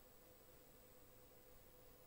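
Near silence: the faint steady hiss of the recording, with a faint steady low tone.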